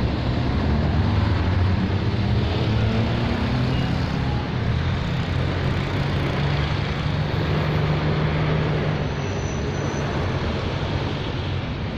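Steady low rumble and engine hum of a container freight train rolling away, easing a little in the second half.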